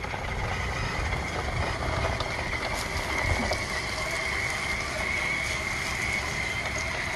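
Drive motor and gearing of a radio-controlled Bruder Volvo A60H articulated dump truck running at a steady speed as the truck drives, giving an even high whine over a rough, noisy rumble.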